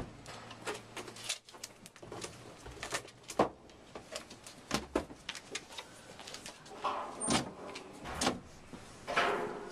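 Books being handled, stacked and set down on a counter and into a crate: a string of irregular knocks, taps and clatter, busier near the end.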